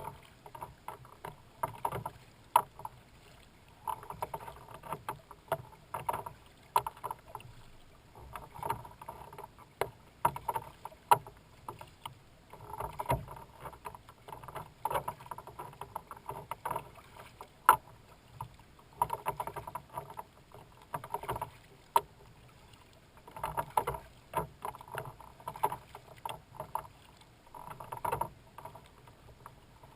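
Kayak paddling: a splash of water about every two seconds as the blades dip and pull in a steady rhythm, with sharp clicks among the splashes.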